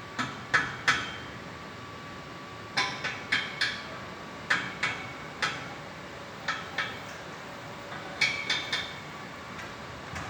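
A hammer striking steel metalwork in short groups of two to four sharp blows, each with a brief metallic ring.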